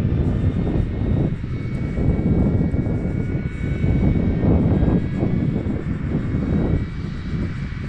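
Twin turbojet engines of a Northrop T-38 Talon trainer jet at low landing power as it flares and touches down: a deep, unsteady rumble with a thin, steady turbine whine above it, easing slightly near the end.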